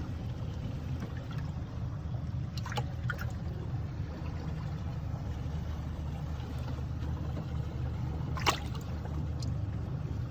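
Steady low drone aboard a small fishing boat, with water trickling. A few sharp knocks cut through it, the loudest about eight and a half seconds in.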